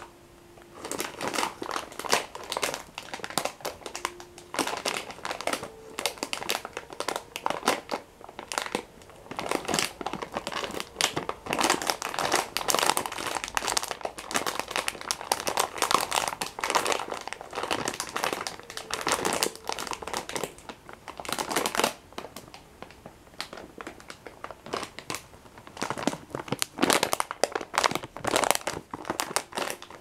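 Plastic biscuit packet being crinkled and squeezed in the hands: dense, rapid crackling that goes on with only brief lulls.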